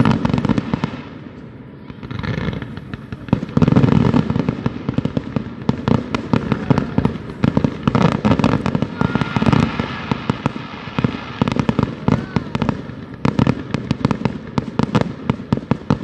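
Aerial fireworks display: shells bursting one after another in quick succession, with rapid crackling between the booms. The loudest burst comes about four seconds in.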